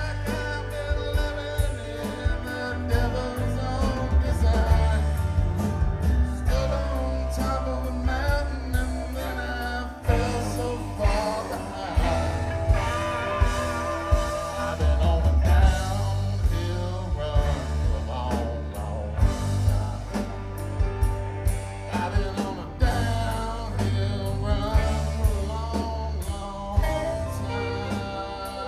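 Live rock band playing: electric guitars, acoustic guitar, bass, drums and keyboards.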